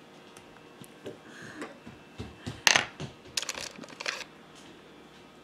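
Small hard clicks and taps of makeup items being handled: a loud click about halfway through, then a quick run of small clicks just after.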